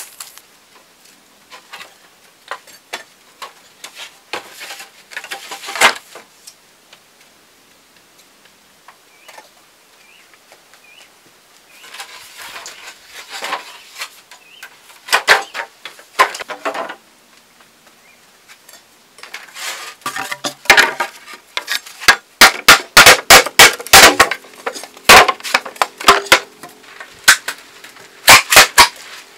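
Hollow bamboo poles knocking and clattering against each other and the ground as a bundle is set down, a dense run of sharp wooden clacks in the last third, some with a brief hollow ring. Before that there are scattered light knocks and rustles as the poles are carried.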